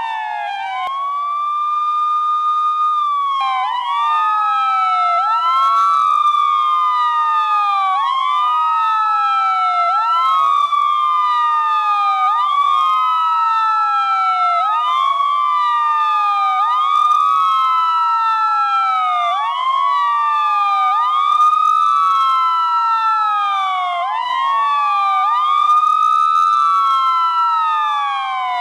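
Police siren ringtone wailing over and over. The pitch rises quickly, holds high, then glides down, and two siren tones overlap out of step with each other.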